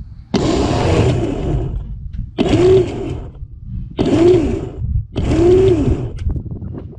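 Electric trailer winch pulling a van onto a car trailer in four short bursts of about a second each. The motor's whine rises as it spins up and falls as it stops each time.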